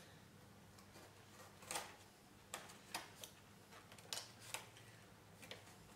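Hobby knife cutting hinge slots into a styrofoam wing's control surface: a handful of faint, short scratching clicks as the blade is pushed into the foam.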